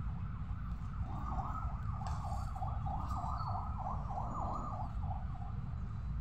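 An emergency-vehicle siren in the distance, its pitch rising and falling rapidly over and over, starting about a second in and fading out near the end, over a steady low rumble.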